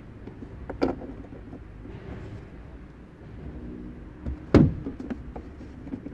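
Plastic interior pillar trim of a Subaru Forester being pried and handled with a plastic pick while a microphone wire is tucked in: two sharp knocks, about a second in and again near four and a half seconds, with a few lighter clicks between.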